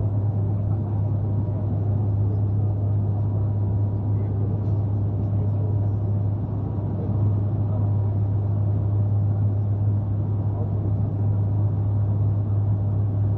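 Bombardier Q400's Pratt & Whitney PW150A turboprop and six-bladed propeller running steadily during the landing approach, heard inside the passenger cabin beside the propeller: a strong, even low hum of the propeller blades over a wash of engine and airflow noise.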